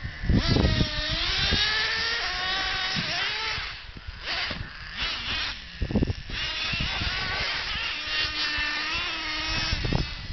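Traxxas Revo nitro RC monster truck engine revving at high pitch, climbing as it accelerates and falling off again, with a brief drop-off around four seconds in. A sharp thump about six seconds in, then the engine runs on more steadily.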